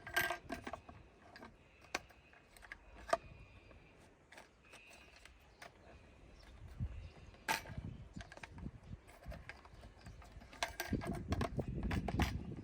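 Small plastic clicks, taps and rattles as a turn signal lamp housing, bulb and socket are handled and fitted together, with a few sharper knocks and a busier stretch of handling near the end.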